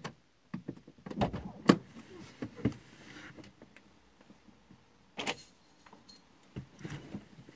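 Mazda3 driver's door being unlocked and opened from inside: a string of sharp clicks and knocks from the lock and handle, the loudest about a second and a half in. Then softer scuffs and rustles as someone climbs out of the seat.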